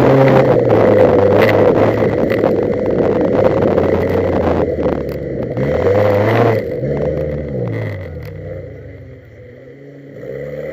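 Onboard sound of a wreck-race car's engine running hard over a muddy dirt track, with many short clicks of stones and mud hitting the car. Past the middle the engine note falls in pitch and dies down to a much quieter run near the end.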